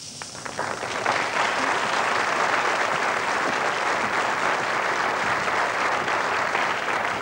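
Studio audience applauding, building up over the first second and then steady.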